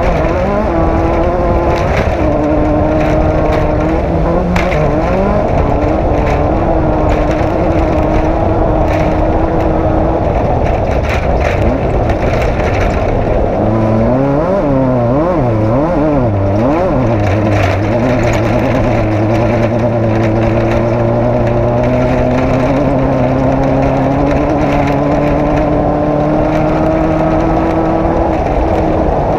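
Off-road race vehicle's engine running hard, its pitch rising and falling with the throttle, with a quick series of up-and-down revs about halfway through and scattered knocks and rattles over rough ground.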